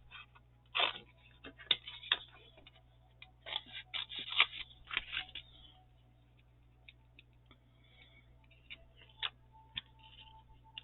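Handling noises of paper crafting: rustles and light clicks and taps as paper and a sticker sheet are handled on the work table, in short clusters through the first half, then only a few faint ticks.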